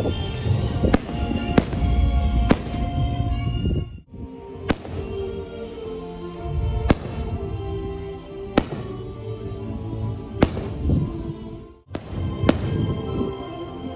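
Aerial fireworks shells bursting overhead: about eight sharp bangs a second or two apart, over music playing throughout.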